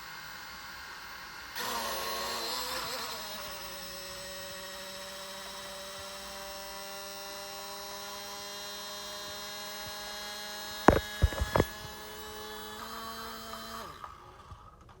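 Mini drone's small electric motors whirring with a steady hum, throttled up about a second and a half in, the pitch sliding down and settling over the next couple of seconds; one of its four propellers is not spinning. Two sharp loud clicks come about three quarters of the way through, and the motors stop shortly before the end.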